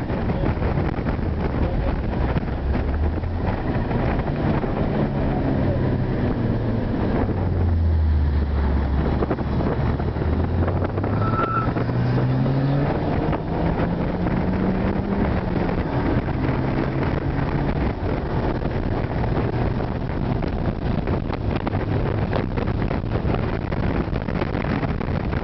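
Toyota Supra engine and straight-through exhaust with cannon muffler and resonated tip, heard from inside the cabin while driven on a track. The engine note falls as the car slows, then climbs steeply under acceleration and steps through gear changes, over steady road and wind noise.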